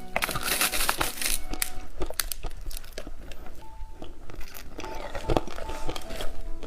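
Plastic candy wrapper crinkling and tearing as it is opened, loudest in the first second and a half, then scattered crackles as it is handled.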